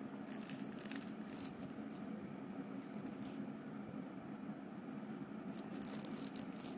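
Thin plastic film and a clear plastic tray crinkling as fingers pick at flaky soan papdi, in three short bursts: near the start, about three seconds in, and near the end. A steady low hum runs underneath.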